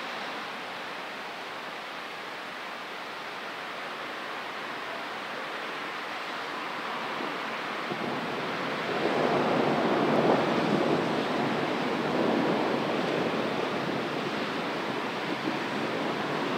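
Thunderstorm noise: a steady rush of wind and rain that swells louder about nine seconds in and stays up.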